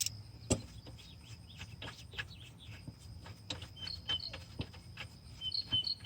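Ratchet wrench clicking in quick irregular strokes while the alternator mounting bolts are unscrewed. A steady high insect buzz runs behind it, and short bird chirps come in over the second half.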